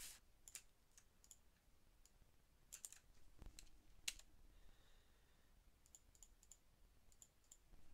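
Faint, irregular clicks of a computer mouse and keyboard, a few scattered single clicks with a small cluster near the end.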